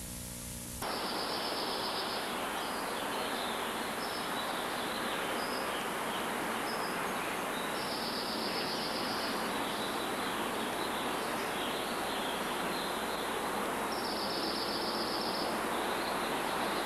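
Steady hiss of outdoor background noise, with a few short high trills over it, the clearest about 8 and 14 seconds in.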